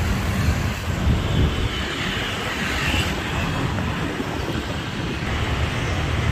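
Sea wind buffeting the microphone in an uneven low rumble, over a steady hiss of street traffic.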